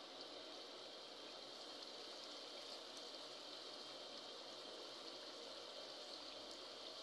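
Chicken and spiced masala frying in oil in a karahi: a faint, steady sizzle and bubbling.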